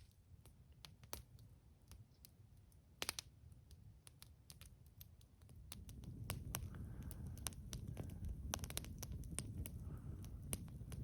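Small wood campfire crackling with irregular sharp pops and snaps, and a low rumble that swells about halfway through.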